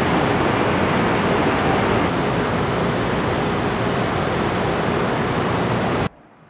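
Loud, steady rush of air from the climate-control blowers and ducting inside a large tent shelter. It cuts off suddenly near the end.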